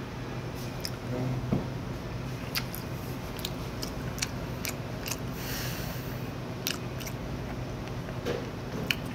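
A person chewing a mouthful of aged raw fish (sashimi), with scattered small clicks and taps, over a steady low room hum.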